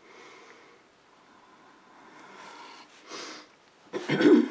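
A person sniffs about three seconds in, then gives one short, loud cough near the end.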